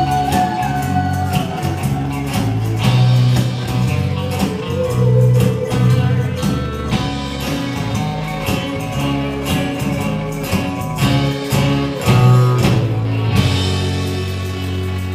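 Live rock band playing: electric guitar, electric bass, acoustic guitar and mandolin over a steady drum beat. About thirteen seconds in the drum strokes stop and a low chord is held.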